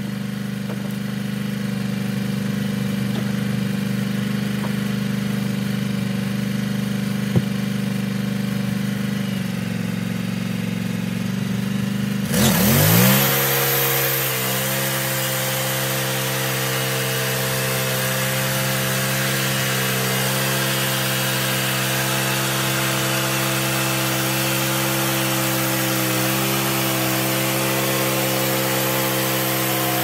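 Wood-Mizer LX150 portable band sawmill: its engine idles, then revs up sharply about twelve seconds in and runs steady at full speed driving the band blade, with a hiss of the blade and cutting over the engine note.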